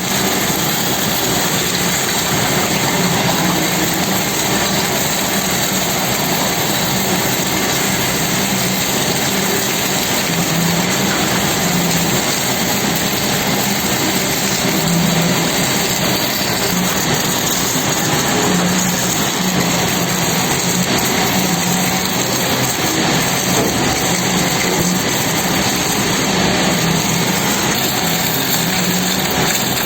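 Stick-electrode arc hardfacing a sugar-cane mill roller: a steady hiss across all pitches, over a low wavering hum of the mill machinery.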